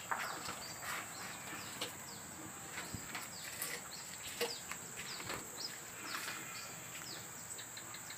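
Rural ambience: a steady high insect drone under many short bird chirps, with a few brief knocks.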